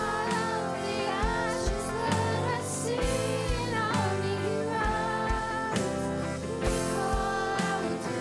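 Church worship band playing a song with a singer's voice over it.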